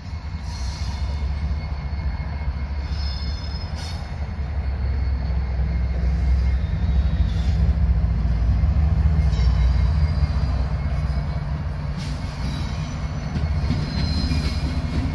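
Freight train rolling past: diesel locomotive engines and railcars making a steady low rumble, with brief high-pitched wheel squeals about three seconds in and again near the end.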